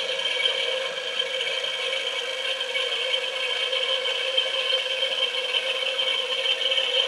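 Battery-powered 1/3-scale Ford 289 V8 model engine running on its electric gear motor: a steady whir with the light plastic rattle of the moving crank, pistons and valve train. It runs with no odd noises, the sign of a correctly aligned mechanism.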